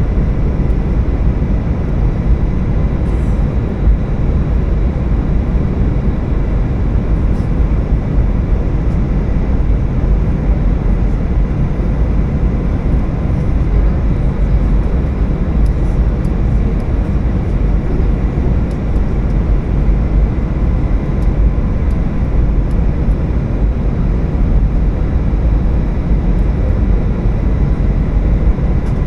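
Steady cabin noise of an Airbus A320 descending to land: a constant low rumble of airflow and engines, with a few faint steady high tones over it.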